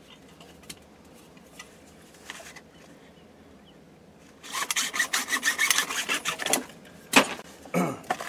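Hacksaw cutting through a PVC riser pipe to a marked length: about two seconds of quick back-and-forth strokes starting about halfway in, then a single sharp knock.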